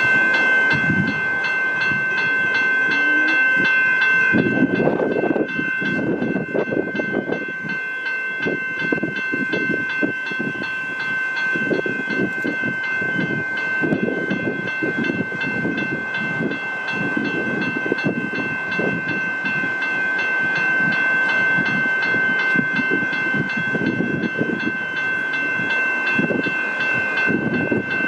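Level crossing warning bell ringing without a break in a fast, even repeating pattern. Under it, a suburban electric train passes over the crossing with irregular wheel and rail clatter, starting about four seconds in.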